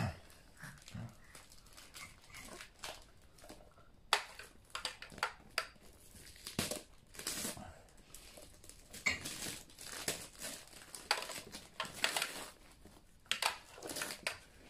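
Wrapping paper crinkling and tearing as a small present is unwrapped by hand, in short irregular rustles.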